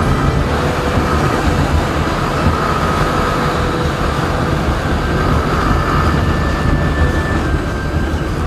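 Motorcycle cruising at speed: a heavy, steady rush of wind over the microphone with the engine's even drone underneath.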